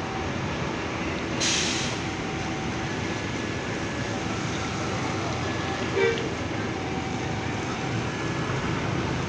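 Bus engines running steadily as buses queue and pull out of a terminal exit, with a short hiss about one and a half seconds in and a brief high beep near six seconds.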